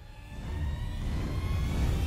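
A low rumbling drone swelling in from quiet and growing steadily louder, with faint thin tones slowly rising above it: an ominous film-score swell.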